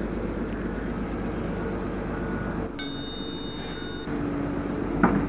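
A bright bell-like ding chime, about three seconds in and lasting just over a second, from a subscribe-button notification animation, over the steady running of the Cat 320D L excavator's diesel engine. A short knock near the end.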